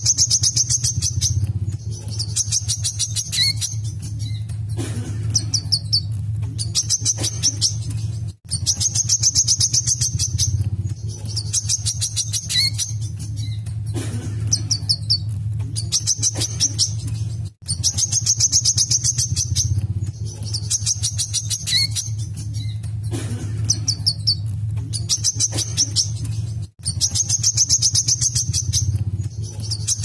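A wiceh (brown-throated sunbird) singing a long, rapid, high-pitched trilling song. The same run of notes repeats about every nine seconds, with a brief break between runs, over a steady low hum.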